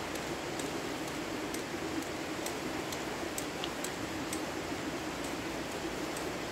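Steady rush of flowing river water, with faint light ticks over the first few seconds.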